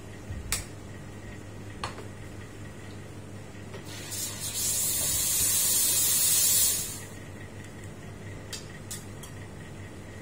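Espresso machine steam wand opened in a loud hissing blast for about three seconds, then shut off: a purge of the wand before steaming milk. A couple of light knocks come before it and a few small clicks after.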